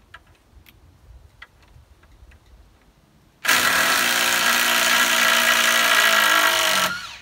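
Power drill running steadily at full speed for about three and a half seconds, starting abruptly halfway through and winding down near the end.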